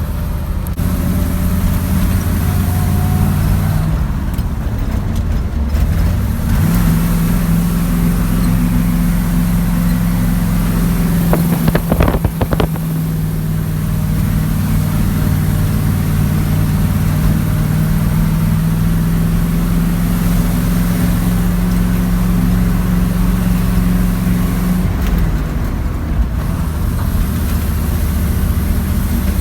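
An engine running steadily. Its pitch steps up about seven seconds in, holds, and drops back near the end, with a short cluster of knocks about twelve seconds in.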